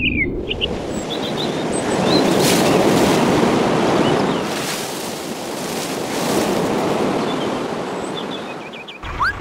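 Wind blowing in gusts, swelling and easing two or three times, with faint bird chirps over it.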